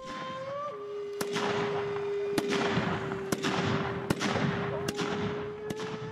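Volley of Japanese Tanegashima matchlock muskets fired in turn: sharp reports about one a second over a continuous crackle and echo of further shots. A steady held tone runs underneath, dropping a little in pitch about a second in.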